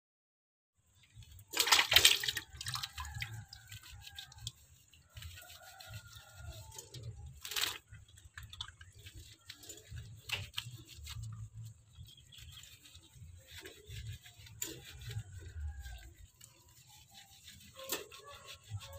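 Hands scrubbing and rinsing a wet, soapy long-haired cat: water splashing and wet fur being rubbed, starting about a second in and loudest just after, over a low rumble.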